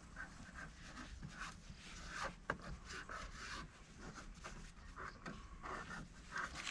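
Faint, irregular rubbing and scratching of masking tape being unrolled and pressed along the edge of a car headlight by gloved hands, with one sharper click about two and a half seconds in.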